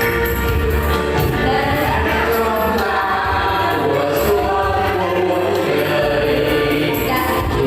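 A small vocal group singing together over a backing band accompaniment.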